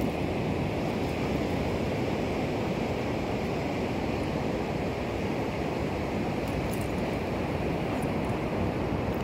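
Steady rush of ocean surf mixed with wind noise on the microphone, with a few faint ticks about two-thirds of the way through.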